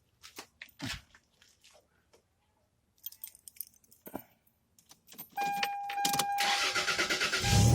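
Keys jingling and clicking in the ignition of a 1999 Toyota Tacoma, then a steady in-cab warning tone, the starter cranking, and the 3.4-litre V6 catching and starting near the end, just after a coil-pack swap made to cure a cylinder-6 misfire.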